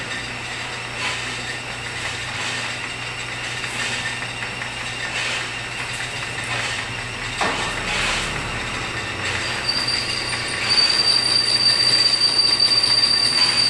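A machine tool running and cutting steel in a machine shop, with a steady low hum. About three-quarters of the way through it grows louder and a steady high-pitched metallic squeal sets in.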